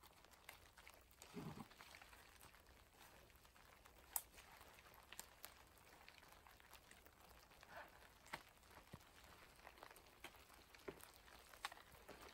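Near silence with faint scattered clicks, a soft thud and rustling as a hiker shoulders and adjusts his backpack and rain jacket.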